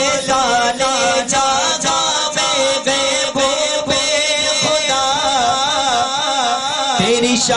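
A man singing a naat (Urdu devotional poem) into a microphone, on drawn-out wavering melodic lines without clear words, over a steady held drone. Faint regular beats come about twice a second.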